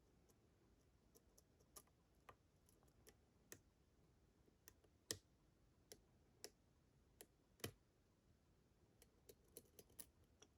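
Faint, irregular clicks of a lock pick and tension wrench working the pin stack of a Picksmith Silent Hill challenge pin-tumbler lock while individual pins are lifted. A few louder clicks come about halfway through and again a little later, with a quick run of small clicks near the end.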